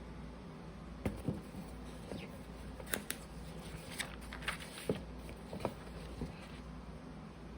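Glossy magazine pages being handled and turned: a string of irregular soft clicks and paper rustles, busiest in the middle.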